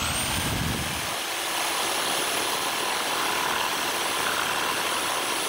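Electric jigsaw starting up and running steadily with a high motor whine as its blade cuts a relief kerf into Douglas fir timber.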